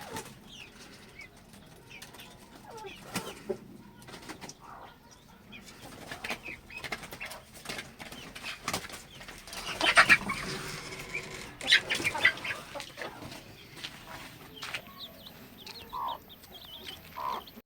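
Domestic hens clucking now and then, with scattered scratching and pecking clicks. Louder rustling bursts come about ten and twelve seconds in.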